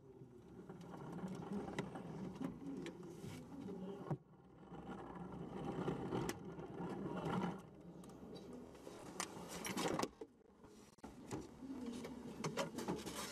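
Onboard sound of the Toyota TS040 Hybrid race car standing still: a steady low mechanical whirring hum, broken by scattered short clicks and knocks, thickest about two-thirds of the way through.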